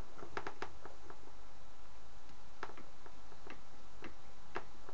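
Ventriloquist dummy's jaw clacking open and shut: short, sharp clicks, a quick cluster at the start and then single clicks about every half second.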